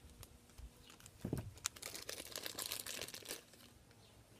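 Foil blind-bag packet crinkling and rustling as it is cut open with scissors and pulled apart, densest from about a second in until near the end, with a short low bump of handling about a second in.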